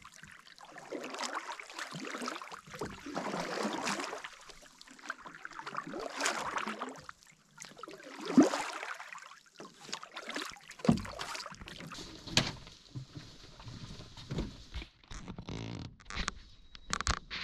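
Footsteps and rustling of a person walking a forest portage trail under a load of gear, with a thump about eight seconds in and scattered knocks after it.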